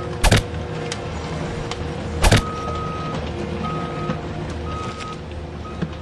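Small electric motors of a toy RC excavator whirring steadily as its arm and bucket move, with two loud sharp knocks, about a third of a second and two and a quarter seconds in. Short high beeps repeat from about halfway through.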